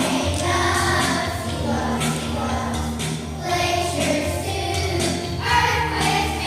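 A group of children singing a song together in unison, with musical accompaniment underneath.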